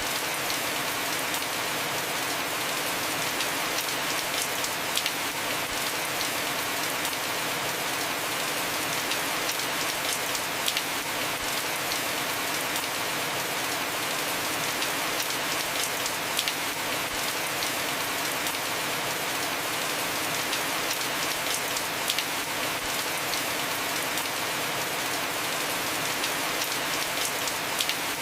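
Heavy rain falling steadily on a house roof, an even hiss with scattered sharper drop impacts.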